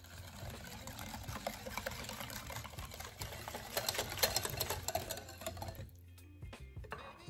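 Wire balloon whisk beating runny cake batter in a ceramic bowl, a fast, steady rattle of the wires against the bowl that stops about six seconds in.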